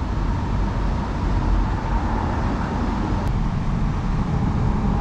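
Steady low rumbling background noise with a faint steady tone, and one faint tick about three seconds in.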